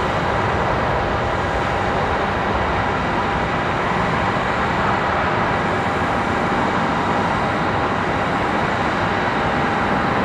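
An Airbus A319's two jet engines at takeoff power as the airliner climbs away: a steady, even noise that holds its level without fading.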